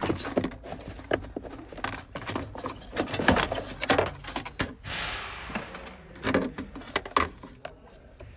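Irregular clicks, knocks and rattles of hands handling metal and plastic parts around a hybrid car battery pack, with a short hiss about five seconds in.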